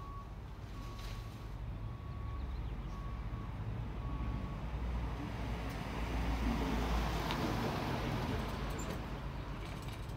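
A Ford Transit van driving past, its engine and tyres swelling to loudest about six to seven seconds in and then fading. Short faint beeps at one pitch repeat during the first four seconds.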